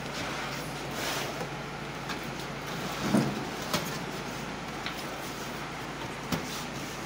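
A few knocks and clicks from handling the metal case of an open desktop computer: a fuller knock about three seconds in, a sharper click shortly after, and another near the end, over a steady low background hum.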